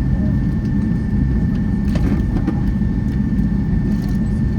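Cabin noise of a Boeing 757-200 taxiing after landing: a steady low rumble from the engines and the wheels on the taxiway, with a thin, steady high whine.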